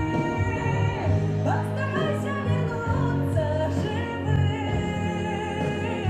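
A woman singing long held notes over an instrumental backing track.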